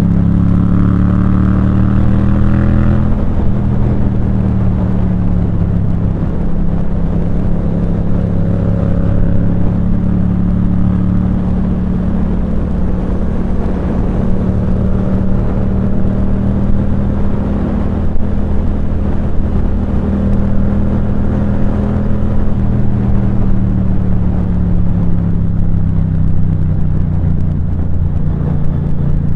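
Yamaha MT-07's 689 cc parallel-twin engine running through a Firetong aftermarket sports exhaust, its note holding fairly steady with slow, small rises and falls in pitch.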